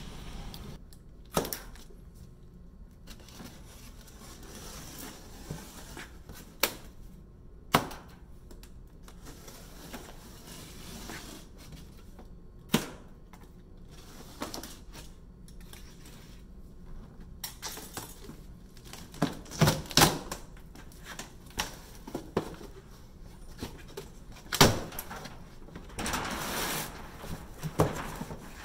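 A large cardboard shipping box being unboxed: scattered sharp snaps and knocks as the plastic packing straps are cut and pulled free, then cardboard rustling and scraping near the end as the box flaps are folded open.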